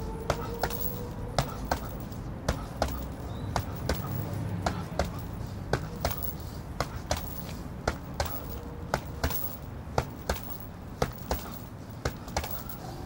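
Boxing gloves punching a hanging heavy bag: sharp thuds at irregular intervals, about two a second, often in quick one-two combinations, over a steady low background rumble.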